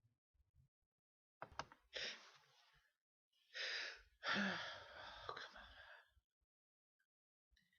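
A person sneezing. A couple of short breathy bursts are followed, about three and a half seconds in, by a sharp in-breath and then a long, noisy sneeze lasting nearly two seconds.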